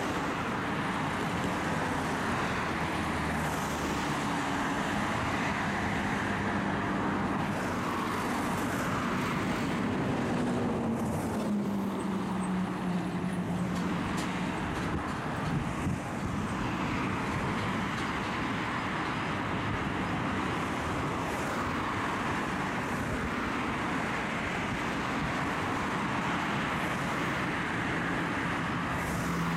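Congested road traffic: car and truck engines running as vehicles creep along, with one engine's low note rising and then holding about ten to twelve seconds in.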